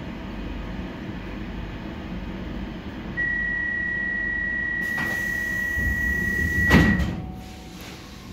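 Door-closing warning on a C14 metro car: one steady high beep starts about three seconds in and lasts about four seconds, with a click partway through. The sliding doors shut with a loud thud just before the beep ends, over the low hum of the stationary train.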